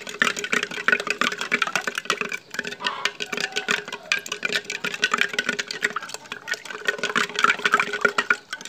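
A spoon stirring milk with sugar, chopped almonds and soaked basil seeds in a jug, clinking rapidly and repeatedly against the jug's sides as the liquid swishes.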